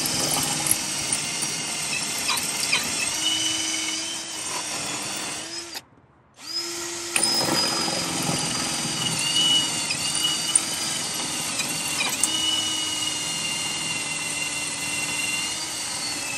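Power drill boring through a seized steel suspension nut, the motor running steadily under load to weaken the nut so it can be split off. It stops for about half a second around six seconds in, then starts again.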